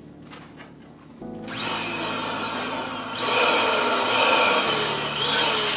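Electric balloon inflator switched on about a second in, its motor blowing air into a black latex balloon held on the nozzle. It gets louder about three seconds in.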